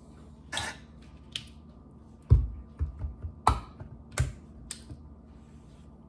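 Kitchen handling clatter: a short scrape or hiss, then a run of irregular knocks and clicks, with two heavier knocks in the middle.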